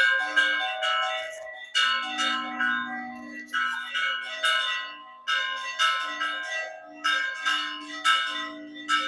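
Church bells rung by hand: several bells struck in quick, uneven clusters, each stroke ringing on and fading under the next, a deeper bell sounding beneath the higher ones.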